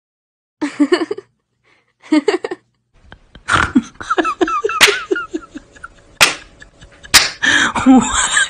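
A woman laughing hard in bursts, with a few sharp clicks in between.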